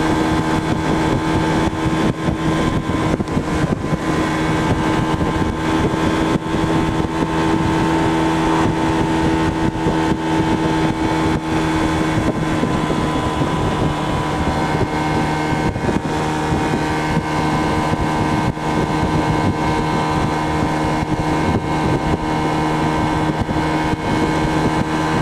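Honda PCX scooter's single-cylinder engine running steadily at a constant cruise of about 55 mph, with wind noise on the microphone.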